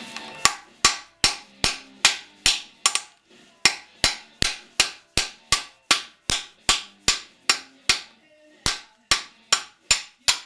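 Hammer blows on metal in a steady rhythm, about two to three a second, with two short pauses. The blows drive a seized valve guide down and out of a 1952 Ford flathead engine block.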